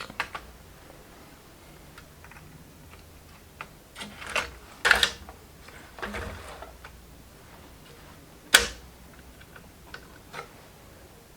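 Small tools clicking and tapping on a laptop circuit board during repair: a few scattered clicks and taps, the sharpest about eight and a half seconds in.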